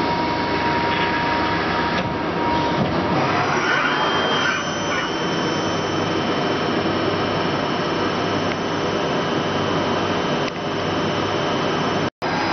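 Okuma LB-15 CNC lathe running: a steady machine hum and hiss, with a high steady whine coming in about three and a half seconds in.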